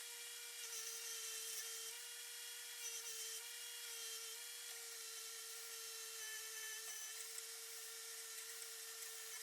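Electric power tool motor running at a steady speed, with a higher hiss of something rubbing or grinding against the work that brightens briefly a few times.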